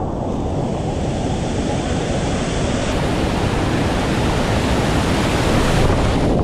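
Continuous roar of whitewater rushing through a river rapid and waterfall drop. A brighter hiss joins about halfway through, and it grows slightly louder toward the end.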